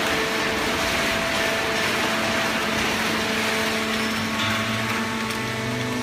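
Fully automatic horizontal hydraulic baling press and its feed conveyor running: a steady mechanical whir and hiss with a few steady hum tones, and a lower hum coming in about four and a half seconds in.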